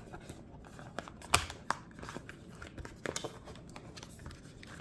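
Cardboard packaging being handled: a few sharp taps and scrapes as the white cardboard insert and the keyboard case are shifted in the box, the loudest about a second and a half in.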